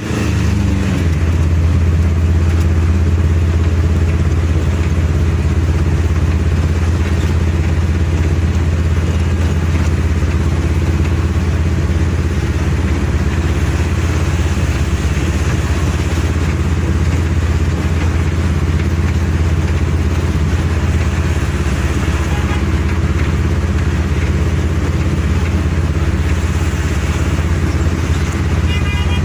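Motor vehicle running at a steady speed: a constant low engine drone with road noise that holds even throughout. A short horn-like tone sounds near the end.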